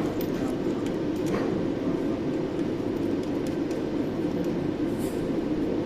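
Steady mechanical hum of running equipment, with a few light clicks.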